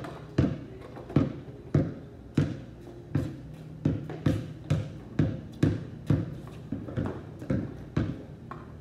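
A basketball being dribbled on a concrete driveway: a steady run of bounces, about two a second.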